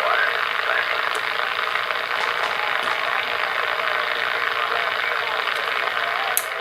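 Stalker 9F DX CB radio receiving: steady static hiss through its speaker with faint, warbling voice-like signals buried in it, and a sharp click near the end.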